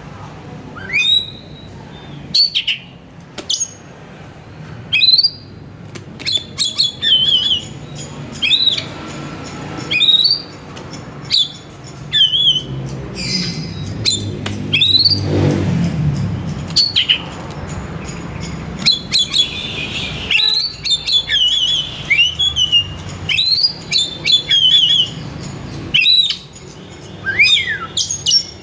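Oriental magpie-robin (kacer) in vigorous, continuous song: loud whistled notes, quick rising upslurs and rapid trills. A steady low hum runs underneath.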